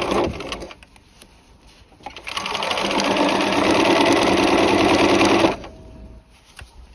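Sewing machine stitching a basted sleeve seam into a jacket: after a couple of seconds of handling the machine starts, picks up speed, runs steadily for about three seconds and stops abruptly.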